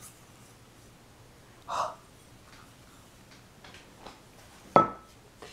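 A porcelain teacup set down on a hard counter with one sharp clink and a brief ring near the end. Before it, about two seconds in, a short breathy rush of sound, and a few faint ticks.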